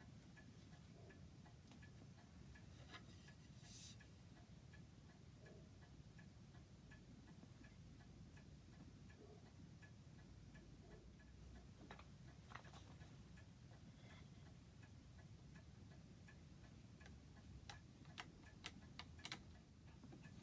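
Faint, regular ticking of a clock under a quiet low room hum, with a few sharp clicks near the end.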